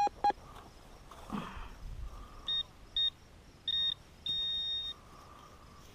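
Metal detector beeping on a buried target: two short low beeps at the start, then four high-pitched beeps that grow longer, the last held for about half a second.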